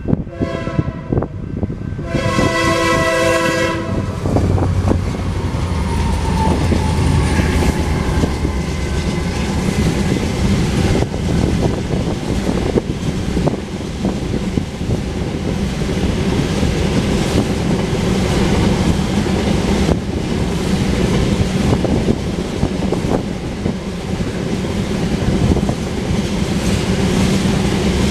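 Diesel freight locomotive horn sounds a short blast and then a longer one, about two seconds long, in the first few seconds. The lead locomotives then pass with a low engine rumble, followed by loaded tank cars rolling by with a steady clickety-clack of wheels over the rail joints.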